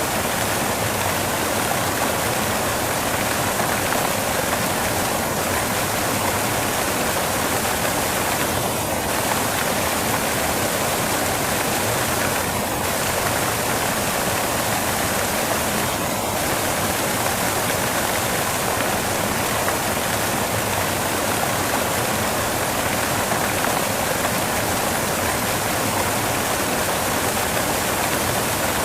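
Relaxation white noise: a steady, even rushing hiss that does not change.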